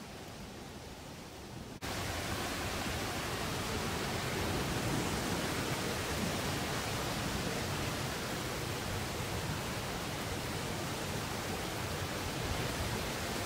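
Steady rain during a thunderstorm, an even hiss that jumps abruptly louder about two seconds in and then holds steady.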